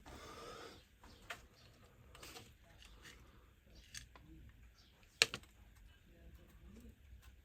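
A few sharp clicks and light rustling from hand tools working on speaker wire, with a short rustle at the start and the loudest click about five seconds in.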